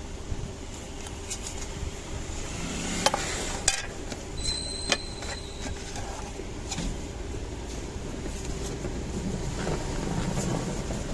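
A few sharp clicks and taps of small tools and phone parts being handled during a phone repair, clustered a few seconds in, over a steady low background hum. A short thin high tone sounds briefly about halfway through.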